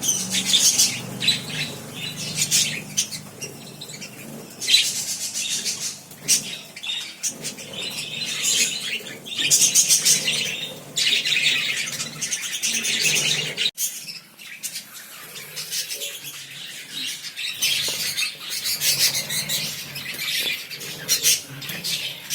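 A flock of small pet parrots kept as love birds, chattering and chirping continuously in a dense, high-pitched mass of calls, with a momentary break about halfway through.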